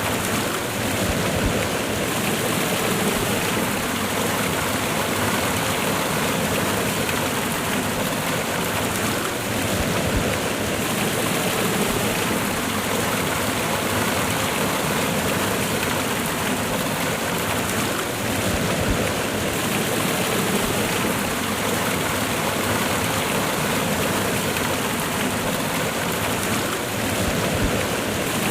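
Water of a cascading waterfall, a steady, full rushing noise that stays even throughout.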